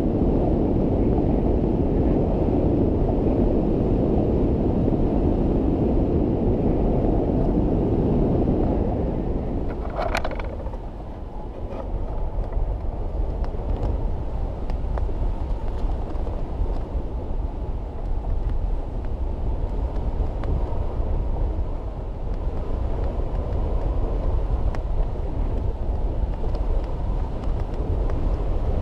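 Airflow buffeting the camera microphone on a hang glider in flight: a steady rushing wind noise, heavier for the first nine seconds and then easing. A brief high chirp sounds about ten seconds in.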